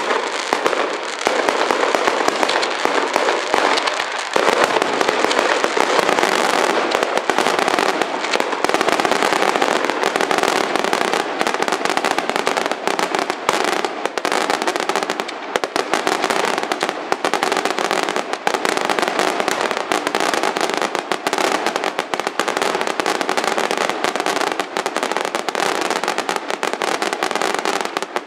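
A fireworks display in full barrage: shell bursts and crackling reports follow one another so fast they merge into an unbroken rattle, with no let-up.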